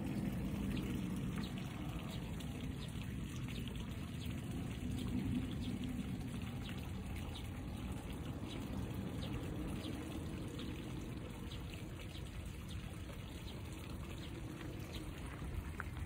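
Water running and trickling steadily in a concrete-lined channel beside a paddy field.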